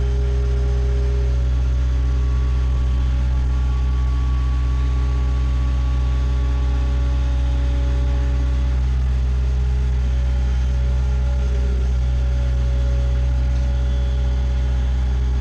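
Bobcat skid steer engine running steadily at an even speed.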